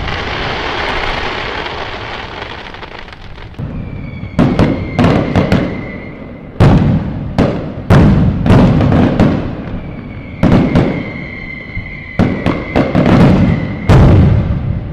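Fireworks going off: a fading crackle at first, then a rapid series of sharp bangs and booms, with a thin, steady whistle sounding twice among them, typical of whistling shells.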